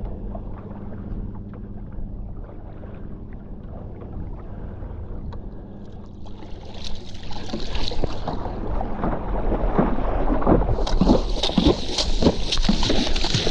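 Paddle strokes and water splashing around a stand-up paddleboard, with a low steady hum in the first few seconds. From about ten seconds in the water noise grows louder and hissier as spray comes off the board.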